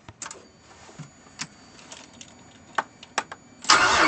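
Scattered clicks of keys at the ignition, with a faint high steady tone once the key is on. Near the end the starter of the 2002 Nissan Frontier's 3.3 L V6 begins cranking loudly for a cold start after the truck sat all day in sub-freezing cold.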